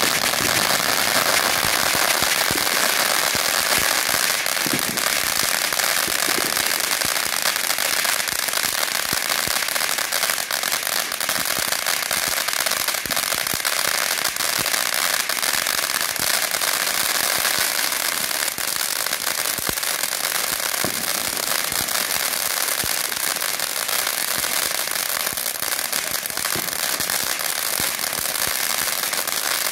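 Ground fountain firework spraying sparks: a steady hiss packed with rapid crackling pops, running without a break.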